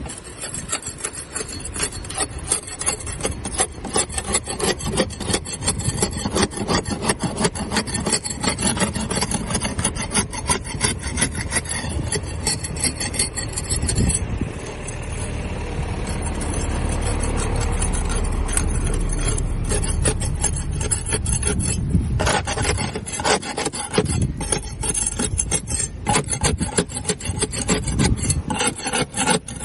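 Barnacles being scraped off a boat hull: a dense run of rapid rasping, crunching strokes. For several seconds around the middle the strokes give way to a smoother, steadier rushing sound before the rapid scraping resumes.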